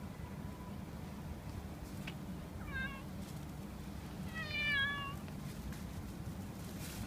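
Fluffy long-haired ginger cat meowing twice: a short meow about two and a half seconds in, then a longer, louder meow about a second and a half later.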